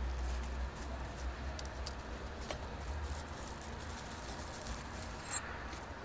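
Faint rustling and crinkling of thin white packaging wrap being handled, with a few light clicks, over a low steady hum.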